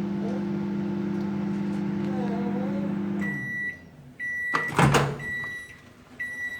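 Microwave oven running with a steady hum that stops a little over three seconds in. Short high beeps follow about once a second, marking the end of the cooking cycle. There is a loud clack near the five-second mark.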